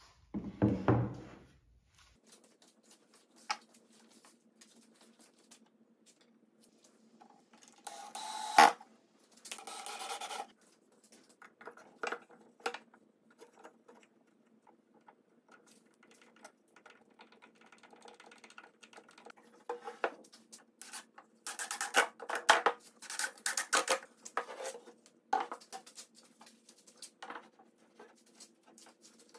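Pine chair parts being handled and set on a workbench: scattered wooden knocks, bumps and scrapes, with a busier run of knocks about two-thirds of the way through, over a faint steady hum.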